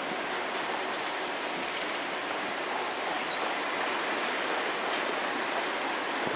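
A steady, even hiss of outdoor noise with a few faint scattered clicks.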